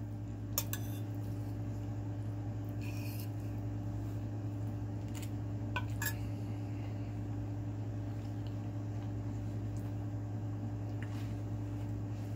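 A few short clinks and scrapes of a metal fork against a plate, about half a second in and again around six seconds in, over a steady low hum.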